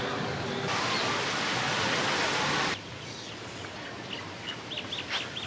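A steady rushing hiss that cuts off abruptly about three seconds in, followed by quieter outdoor ambience with birds chirping, a quick run of short, high, downward-sliding calls near the end.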